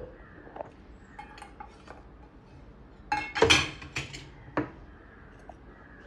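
Stainless-steel spoon clinking against a small steel dish as salt is scooped out: a few light taps, then a quick run of louder clinks about three seconds in, with one more clink about a second later.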